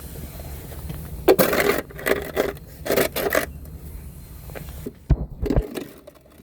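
Several short bursts of scraping and clattering, then two low thumps about five seconds in.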